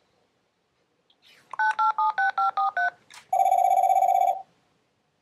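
A phone call being placed: seven quick touch-tone keypad beeps, each two tones at once, a click, then one trilling telephone ring about a second long.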